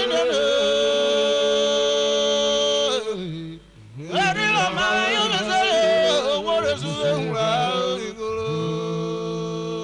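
A man singing unaccompanied, in Urhobo style: a long held note for about three seconds, a brief break, then a wavering, ornamented phrase, and another long held note near the end.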